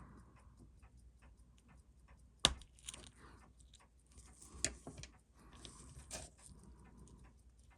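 Steady rapid ticking, about four ticks a second, under a few louder sharp clicks and light scraping of small metal tools and parts on a watch movement at a watchmaker's bench.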